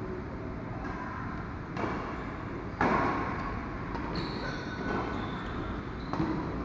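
Badminton rackets striking a shuttlecock during a doubles rally: several sharp hits a second or so apart, the loudest about three seconds in, each ringing briefly in a large hall.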